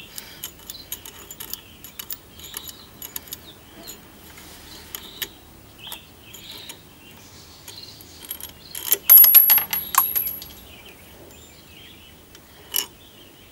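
Small metal parts of a classic sewing machine's thread tension assembly clicking and clinking as the tension nut is unscrewed and the spring and tension discs are taken off for cleaning. About nine seconds in comes the loudest part, a quick cluster of metallic clinks with a bright ring, and there is one more clink near the end.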